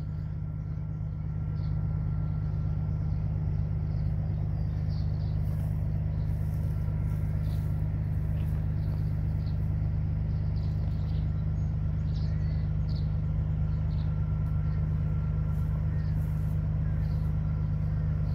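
A heavy vehicle engine idling steadily, a low even drone that grows slightly louder about a second and a half in.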